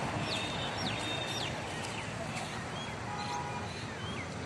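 Birds calling in quick, short falling whistles over a steady outdoor hiss, with a few scattered chirps later on.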